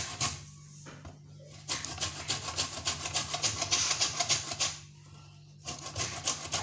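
Orange peel being rubbed hard against a grater to take off zest: runs of quick rasping strokes, stopping twice briefly.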